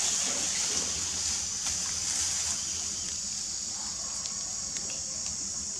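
Steady high-pitched outdoor hiss over a low hum, with a few faint clicks about four to five seconds in.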